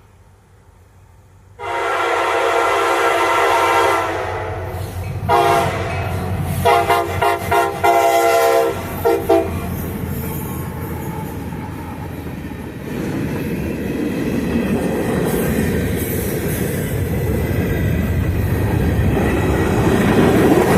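Locomotive air horn of a CSX freight train sounding a long blast, then several shorter blasts, as the train approaches at track speed. The horn then gives way to the growing rumble and rattle of the locomotive and cars passing close by, with clickety-clack of the wheels, louder toward the end.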